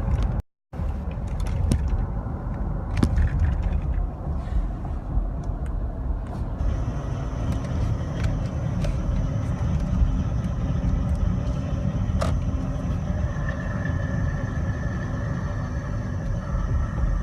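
Ford F-150 running with a steady low rumble. From about six seconds in, a thin steady high whine sits on top of it.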